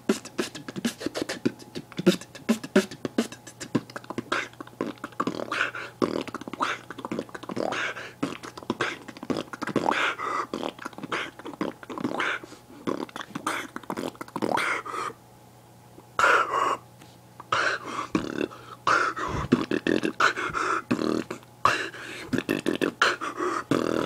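Solo human beatboxing: a fast run of sharp mouth-made drum hits, clicks and short vocal bass sounds, breaking off briefly about two-thirds of the way through before picking up again.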